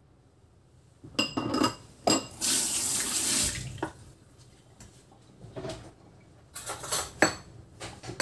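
Clatter of metal kitchen utensils, then a kitchen tap running briefly for about a second. Light clinks of a metal spoon against dishes follow near the end.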